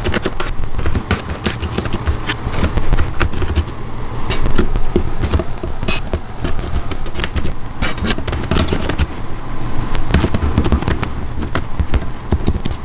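Garlic frying in hot oil, sizzling with many rapid sharp pops and crackles over a steady low rumble.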